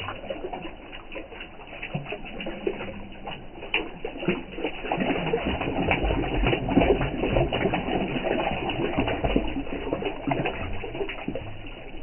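Water poured from cupped hands splashing and trickling into a flowing irrigation canal, a dense patter of small splashes that grows louder in the middle, over the steady flow of the canal.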